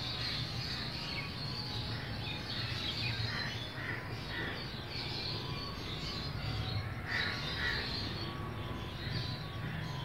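Birds calling: crows cawing and small birds chirping in short scattered calls, over a steady low background rumble.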